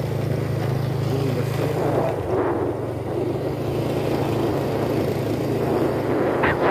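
Motorcycle engine running at a steady speed on a rough dirt track, with road and wind rumble. A brief sharp knock near the end, after which the noise grows louder.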